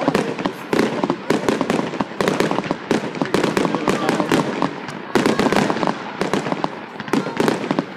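Aerial fireworks bursting in a dense, continuous run of sharp pops and bangs, many each second.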